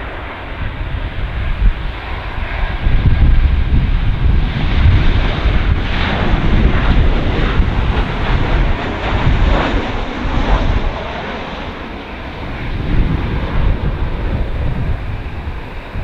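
Boeing 737-800 jet engines as the airliner comes in to land, with heavy gusting wind buffeting the microphone. The jet noise swells about a third of the way in and eases off in the last few seconds.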